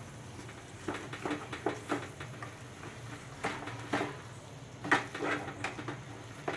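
Wooden spatula scraping and knocking against the pan while stirring a thick grated-potato filling, in irregular groups of quick strokes.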